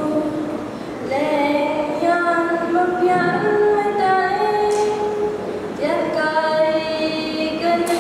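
A young girl singing solo and unaccompanied into a microphone: a slow melody of long held notes in phrases, with short breaks about a second in and near six seconds.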